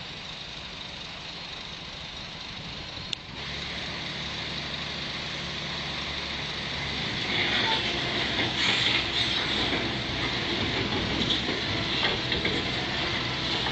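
Old crawler piling machine's engine running as the machine climbs onto a low-loader trailer on its steel tracks. There is a sharp click about three seconds in, after which a steady engine note comes up. From about halfway a louder clanking and grinding of the tracks on the ramps takes over.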